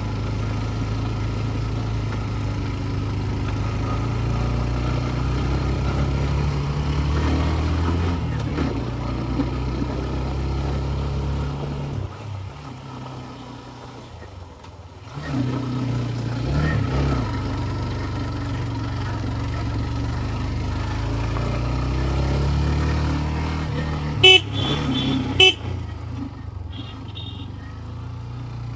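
Scooter engine running under way with a steady low drone that fades for a few seconds midway and then picks up again. Two short horn toots near the end.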